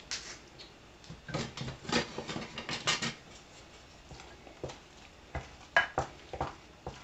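A wooden spoon stirring and mashing potatoes with butter in a glass bowl. The spoon knocks and scrapes against the glass at irregular intervals, in clusters about a second in and again near the end.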